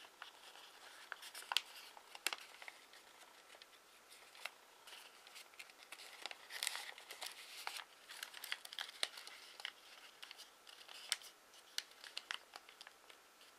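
A 15 cm sheet of origami paper being handled, opened out and creased by hand: quiet, irregular rustling and crinkling with sharp paper snaps, the loudest about a second and a half in, at two seconds and near eleven seconds.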